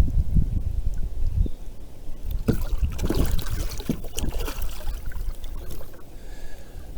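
Water splashing and sloshing around a kayak, with a steady low rumble on the microphone throughout.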